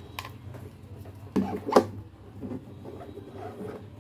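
Plastic dome camera housing and its power cable being handled: a few short clicks and knocks, the loudest just under two seconds in.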